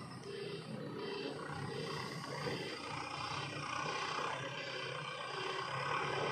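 Diesel engine of heavy earth-moving machinery running under load while digging and loading mud, a steady low roar that grows a little louder toward the end.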